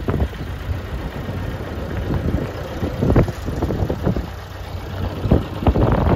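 Gehl CT7-23 telehandler's turbo diesel engine running at low revs while its forks lift a crate from a trailer, with several sharp knocks and clanks of the load and forks, about three seconds in and again near the end.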